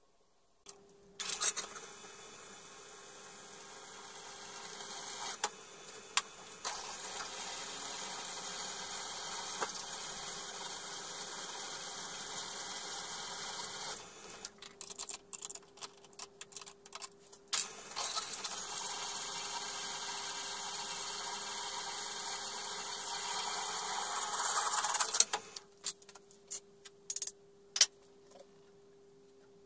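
Drill press motor running with a steady hum while a twist drill bores into a thick steel plate: two long stretches of cutting noise, the second rising in level near its end, with clicks and knocks of the plate and chips between them and after.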